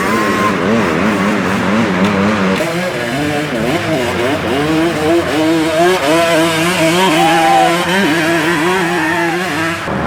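Several youth ATV engines revving at once, each throttling up and down so their pitches rise and fall and overlap.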